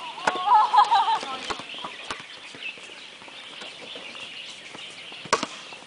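A volleyball struck by players' hands several times, giving sharp slaps, the loudest near the end. A short, high-pitched shouted call from a player about half a second in.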